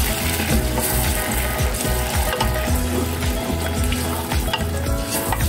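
Blended tomato sauce sizzling in hot oil in a pot as a spatula stirs it, with small clicks and scrapes against the pot.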